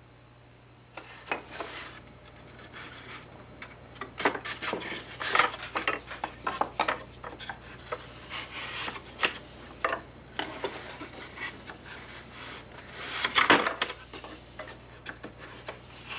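Homemade wooden shutter pieces being handled: irregular knocks, clatters and wood scraping on wood, with a louder clatter about 13 seconds in.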